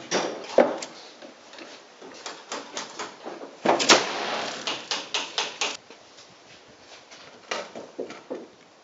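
Miniature black-powder model cannon firing with a sharp crack about four seconds in, inside a short burst of noise and followed by a run of sharp clicks for a couple of seconds. Scattered knocks and clicks come before and after.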